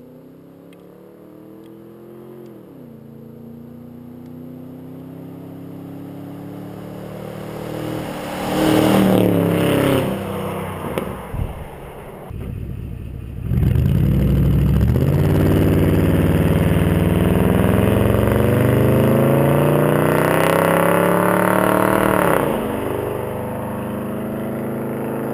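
Ford F150's 5.4-litre V8 running through 2.25-inch true dual straight pipes with no mufflers. The engine note builds as the truck approaches and passes loudly about nine seconds in, its pitch dropping as it goes by. After a short break a long, loud pull follows with the revs climbing, then it eases back to a steadier, quieter run near the end.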